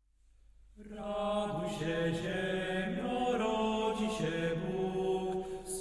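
Intro music of slow, sustained chant-like voices holding long notes, fading in about a second in.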